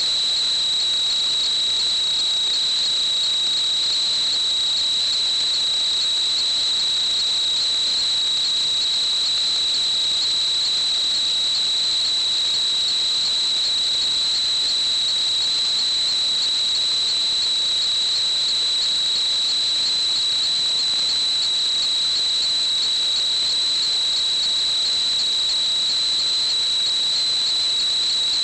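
A steady high-pitched whistle, one unchanging tone over a faint hiss.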